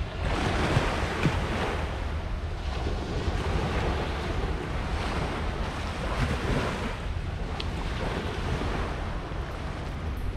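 Small waves washing up onto a sandy beach, the surf noise swelling and fading every couple of seconds, with wind rumbling on the microphone.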